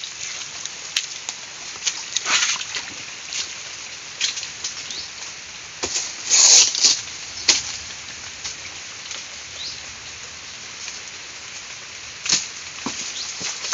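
Nipa palm fronds and dry leaves rustling and crackling as someone pushes through and grabs at them, in short irregular bursts, with louder swishes about six and a half and again about twelve seconds in.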